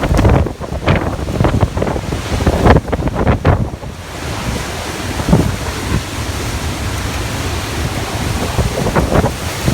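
Typhoon-force wind rushing and gusting, battering the microphone with heavy low buffeting. Sharp surges come in the first few seconds, then it settles into a steadier roar.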